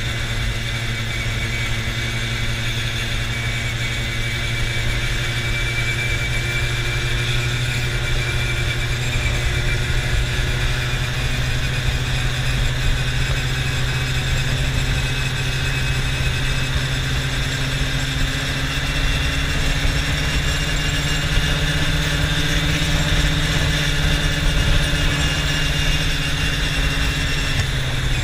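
Quad bike (ATV) engine running steadily as it rides along a road, its tone climbing slowly over the second half and dropping back near the end. Wind and road noise run underneath.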